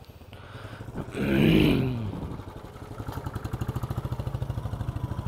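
Motorcycle engines. About a second in, a small motorcycle passes close, its engine note dropping as it goes by. Then comes a steady, rapid, even putter like an idling single-cylinder engine, which fits the camera's own Bajaj Dominar 250.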